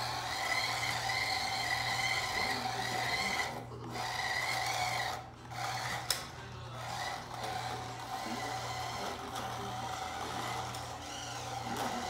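Small electric drive motor and gears of a 1/18-scale RC truck, whining steadily as it drives, cutting out briefly twice and starting again.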